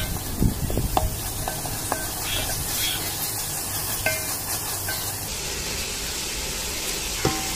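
Prawns sizzling as they sauté in an aluminium pot, stirred with a wooden spatula that knocks against the pot's side in several short ringing taps.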